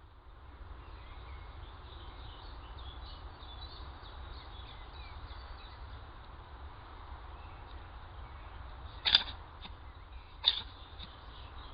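A fox sneezing: two loud, sharp, very short sneezes about a second and a half apart near the end, with a few fainter snorts between them, over a steady low background noise.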